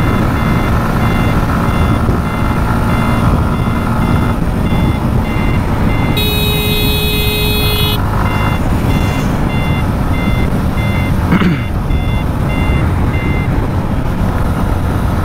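Motorcycle riding along a highway, its engine, road and wind noise a steady rumble, with a high electronic beep repeating about two and a half times a second. About six seconds in, a horn-like multi-tone blast lasts about two seconds. A short falling whoosh comes a little past eleven seconds.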